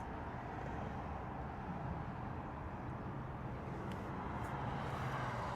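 Steady outdoor background noise with a low hum, and a couple of faint clicks about four seconds in.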